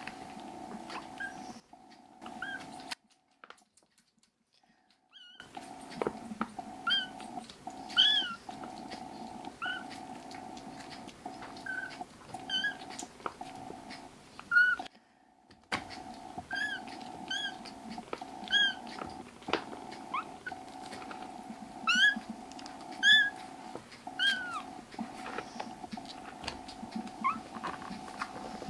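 Young kitten mewing over and over, short high-pitched mews that rise and fall, about one a second, over a steady low hum. The sound drops out for a few seconds near the start.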